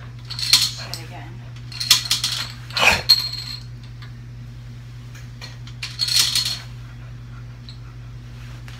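Plastic Connect 4 checkers dropped one at a time into the upright grid, each clattering down its column; about four drops, over a low steady hum.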